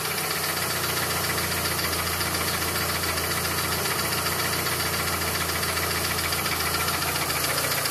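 Mitsubishi Lancer Evolution's reconditioned Evo 7 turbo four-cylinder (4G63) engine idling steadily with a fast, even ticking, which the owner places around cylinder 4, the cylinder whose spark plug he found with a melted tip.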